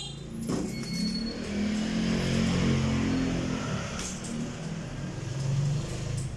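Punches landing on a hanging heavy bag, with a couple of sharp thuds and the bag's chain clinking as it swings, over a steady low drone that is the loudest sound throughout.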